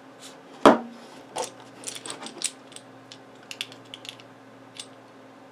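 Small clicks and light taps of a multitool knife and sharpener parts being handled, with one sharper knock under a second in.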